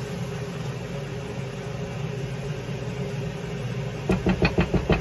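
Stove range-hood fan running with a steady hum. Near the end, a quick run of about eight knocks as a spoon stirs the rice and tomato sauce against the pan.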